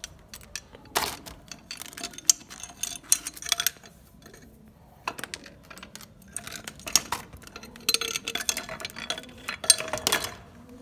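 Irregular metallic clinks and clatter from a spanner and the metal parts of a three-trumpet pressure horn as its nuts are undone and the pieces taken off.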